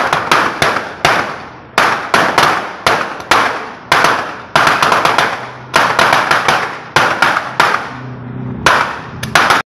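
Firecrackers going off in a long, irregular string: dozens of sharp bangs, about three a second, each with a short echo. The run cuts off suddenly at the very end.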